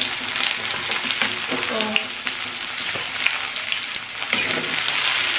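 Fenugreek seeds and chopped onion sizzling in hot oil in a wok, a steady hiss with sharp crackles.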